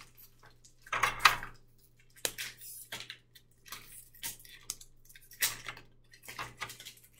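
Scattered small clicks, taps and rustles of hands handling food on a kitchen counter, with a louder clatter about a second in.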